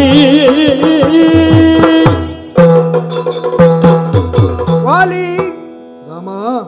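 Yakshagana talamaddale music: a man's voice sings a wavering melodic line over a steady drone, with maddale drum strokes whose deep tones slide down in pitch and sharp hand-cymbal strikes keeping time. The music thins out and drops away about five and a half seconds in.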